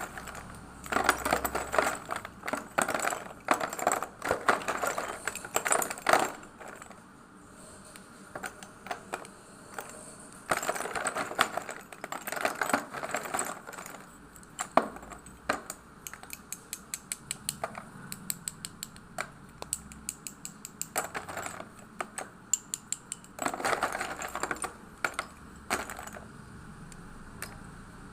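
Colour chalk crunching and snapping in sharp, crisp clicks, coming in three dense bouts with scattered single clicks between them.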